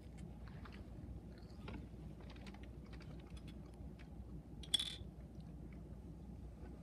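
Close-up chewing and mouth sounds from people eating snacks: scattered soft wet clicks and small crunches. A brief louder hiss comes about five seconds in.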